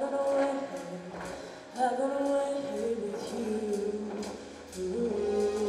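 Mixed-voice show choir singing sustained notes in harmony, backed by a live band.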